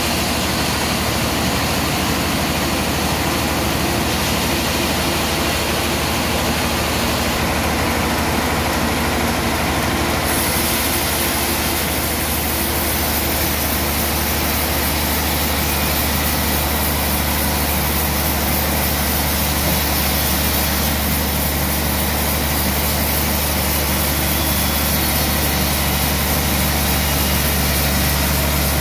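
Large band sawmill running steadily as its blade saws through a big trembesi (rain tree) log, with a constant low motor hum under the hiss of the cut.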